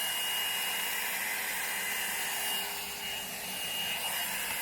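Inglam blow dryer brush running: a steady rush of blown air with a constant high motor whine.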